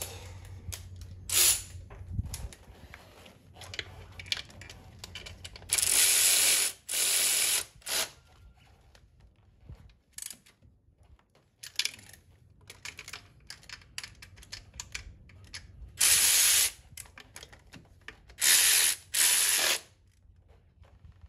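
Hand ratchet tightening bolts: several short runs of rapid ratchet clicking. There is a pair about six seconds in and more from about sixteen seconds in, with fainter clicks and tool taps between.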